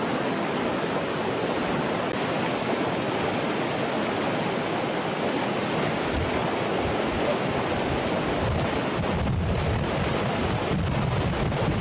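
Shallow river rushing over a stony bed, a steady hiss of flowing water. From about halfway through, a low wind rumble on the microphone joins in.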